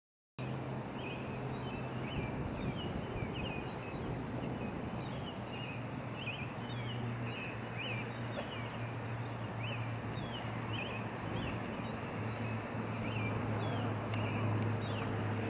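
Birds chirping repeatedly in short, quick calls over a steady background of noise and a low hum. It starts abruptly just under half a second in.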